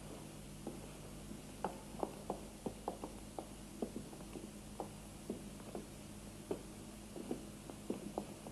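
Faint footsteps, an irregular run of light knocks about two or three a second, over a steady low hum.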